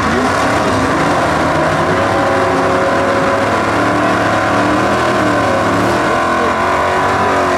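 A 1964 Ford Fairlane super stock drag car doing a burnout, its V8 held loud and steady at high revs while the rear tyres spin and smoke.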